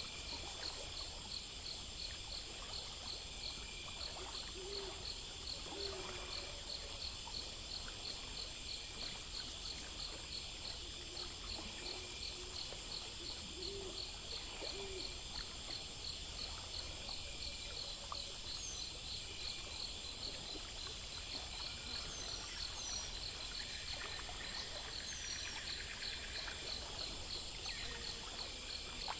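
Night-time nature ambience: a steady chorus of insects trilling in fast, even pulses, with a few short low calls about five and fourteen seconds in and some brief high chirps in the second half.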